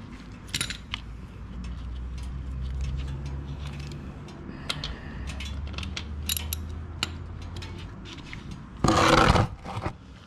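Socket wrench working the oil drain bolt of a 1998 Harley-Davidson Road King loose: scattered metallic clicks and scrapes over a low hum, with one louder burst of noise about nine seconds in.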